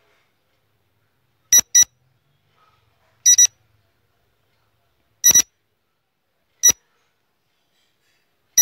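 Electronic quiz-countdown timer beeps: short, high beeps, three quick double beeps followed by two single beeps, spaced a second or two apart.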